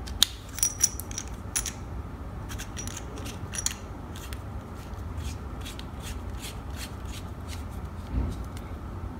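Metal handheld microphone being handled, with its barrel section twisted together in the hands. It gives a run of small metallic clicks and taps, thickest in the first four seconds, and a soft thump near the end.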